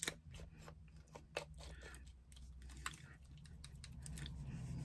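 Faint, irregular small clicks and taps of paint supplies being handled on a work table.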